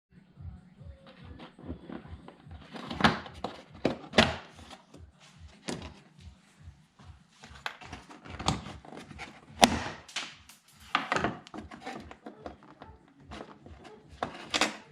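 Irregular knocks, clicks and clacks of the plastic engine air-intake parts being worked loose and pulled off by hand and tools, with a handful of sharper clacks scattered through.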